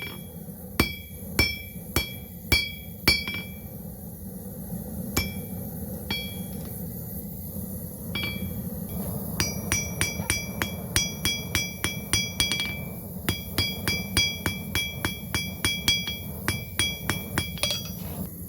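Hand hammer striking steel on an anvil, each blow ringing at the same pitch. The first few blows come about two a second, a few sparse strikes follow, then from about nine seconds in a quicker run of lighter blows, over a steady low hum.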